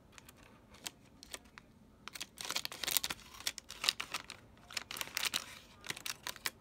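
Scissors cutting open a hard drive's anti-static plastic bag: a few isolated clicks, then from about two seconds in a busy run of sharp snips and crackling plastic.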